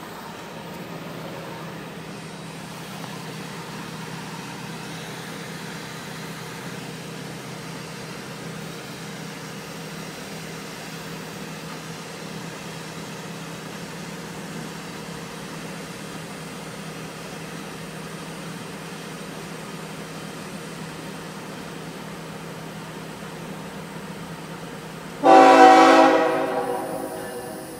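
Diesel locomotive air horn of an approaching CSX intermodal train sounding one loud blast near the end, fading over about two seconds. Beneath it, a steady low drone throughout.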